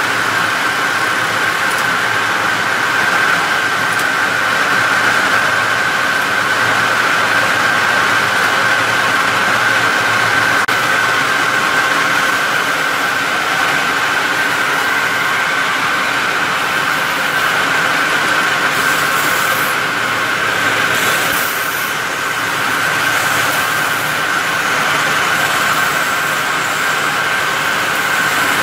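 Polytek CBL 1000 plastic bag-making and film-welding machine running in production: a steady mechanical din with a constant high whine.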